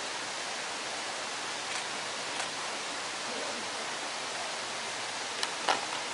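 Steady, even hiss of outdoor background noise, with two faint clicks near the end.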